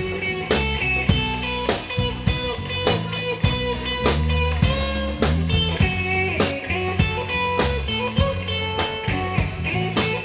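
Live blues band playing an instrumental break without vocals: guitars, bass and a drum kit keeping a steady beat under a held-note lead line.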